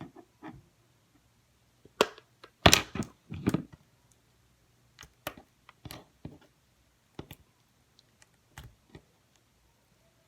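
Slime being squeezed and stretched by hand, giving irregular sticky clicks and pops, with a louder cluster about two to four seconds in.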